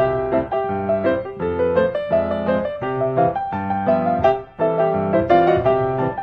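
Background piano music: a melody with chords.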